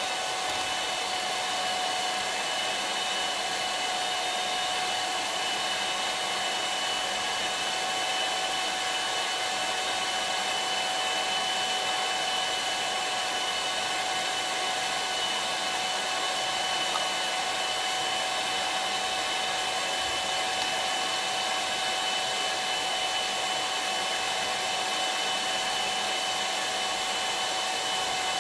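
Electric hand mixer running at a constant speed, its beater whipping instant cappuccino, sugar and hot water into dalgona foam in a small glass jar: a steady motor whine with two held pitches over a hiss, with no change in speed.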